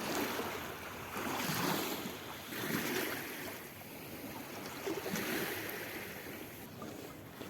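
Small sea waves washing in against the stones of a breakwater, in several swells a second or two apart.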